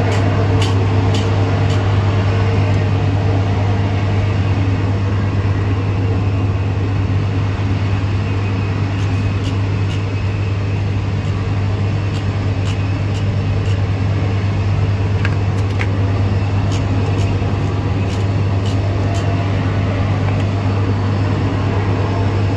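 Electric hair clipper buzzing steadily, a low even hum, as it is run over the hair, with a few light clicks from handling.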